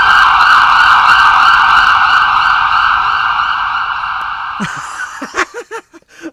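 Electronic music soundtrack: a sustained, siren-like noise sweep fades out over about four and a half seconds. It gives way to a run of short, bouncing electronic blips near the end.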